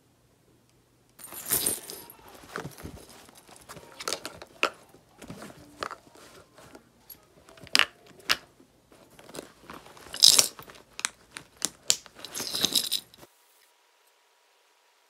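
Small items being handled and packed into a leather shoulder bag: an uneven run of clicks, taps and rustles from makeup compacts and cases, with light metallic clinks of the bag's chain strap. The sharpest clatters come about two, eight, ten and twelve seconds in, and it stops about thirteen seconds in.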